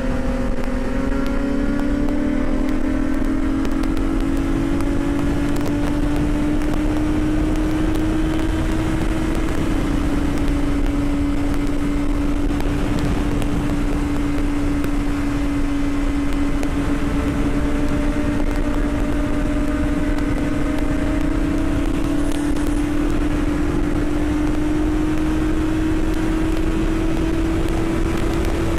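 Yamaha YZF-R6S inline-four with a Two Brothers full exhaust running steadily at cruising speed under wind rush. Its note climbs slowly, eases slightly about a third of the way through, then rises again.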